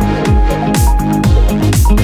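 Background electronic dance music with a steady beat of deep drum hits under sustained synth notes.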